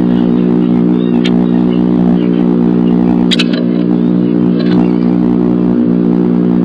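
Loud, steady electrical hum from the nest-box camera's audio, with a few short scratches and clicks from the bluebird moving in the wooden box. The sharpest scratch comes about three seconds in, as the bird leaves.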